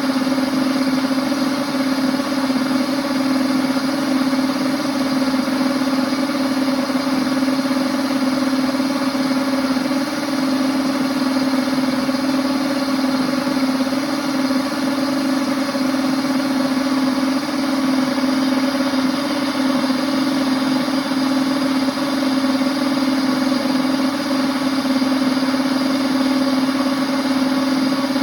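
Princess House Vida Sana blender motor running steadily at one constant speed with an even whine, blending milk and chocolate tablets.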